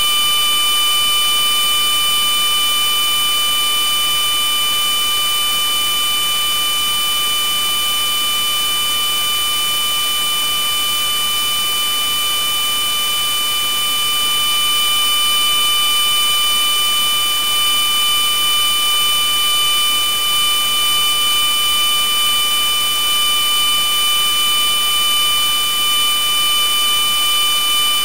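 Loud electronic noise: a steady hiss with several high, steady tones held over it, harsh and alarm-like. It does not change except for a slight regular pulsing in loudness in the last third.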